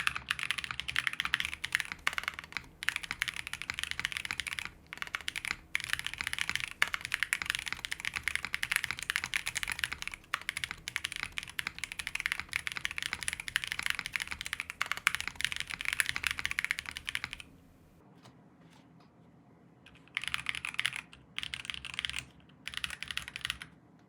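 Swagkeys Shelby80 mechanical keyboard with stock unlubed Zaku switches in an aluminium plate and CRP Tulip keycaps, typed on fast and continuously. The keystrokes stop for about two seconds, then come back in three short bursts near the end.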